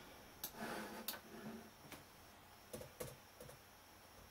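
Faint, irregular clicks of keys being pressed on a Samsung laptop keyboard, about half a dozen over a few seconds.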